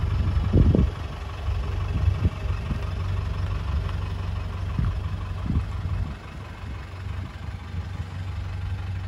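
1991 Land Rover Defender's engine idling at the tailpipe, a steady low throb, with a few low thumps, the loudest about half a second in. It grows quieter about six seconds in.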